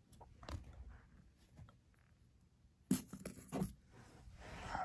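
Soft scrapes, knocks and rustles of someone moving about on carpet and handling a camera, with a cluster of knocks about three seconds in and a rustle that swells near the end.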